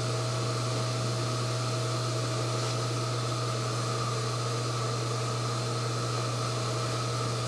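RDO LC induction melting furnace running under power while melting copper: a steady low hum with a thin steady whine over an even rushing, fan-like noise.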